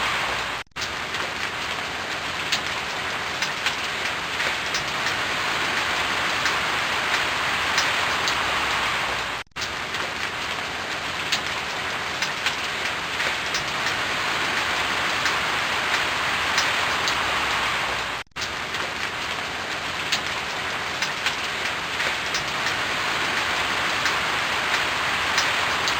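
Steady rain falling on a surface: a dense even hiss with scattered individual drop ticks. It drops out for an instant three times, about nine seconds apart.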